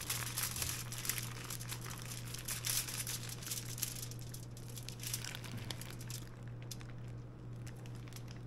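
Plastic zip-top bag crinkling and rustling as a marinated pork loin roast is squeezed out of it onto aluminium foil, the crinkling thinning out in the last couple of seconds.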